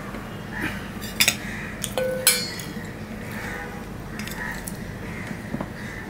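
Stainless steel plates clinking as fingers and food are moved about on them. There are a few sharp clinks a little after a second in and around two seconds in, and the loudest leaves a brief metallic ring.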